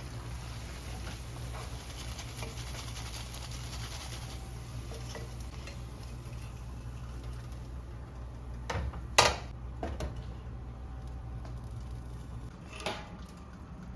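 Light kitchen handling sounds: soft scattered taps, a sharp knock about nine seconds in and a smaller one near the end, over a steady low hum.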